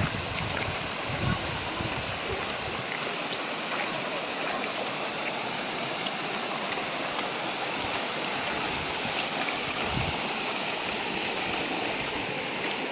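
Shallow river rushing steadily over rocks in small rapids, a constant watery hiss, with a couple of brief low thumps.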